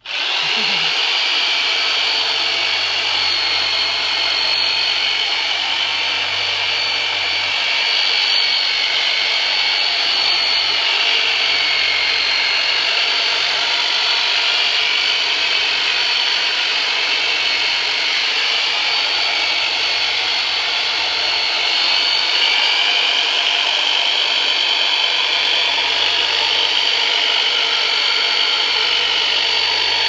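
Handheld corded electric percussion massager switched on and running with a steady motor whir while pressed against a person's back and legs.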